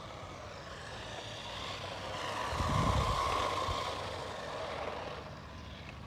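A small RC monster truck's 390 brushed electric motor and gears whining as it drives on asphalt, swelling to its loudest about halfway through as it comes close, with a brief low rumble at the same moment, then fading.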